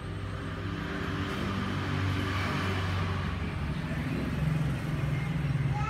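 A motor vehicle's engine running as a steady low hum, with a rushing noise that swells two to three seconds in and then eases off.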